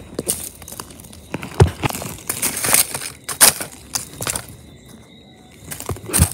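Irregular crunching and rustling of charcoal chunks and dry debris disturbed close to the microphone as toy figures are moved over the ground, in several sharp bursts with quieter gaps between them.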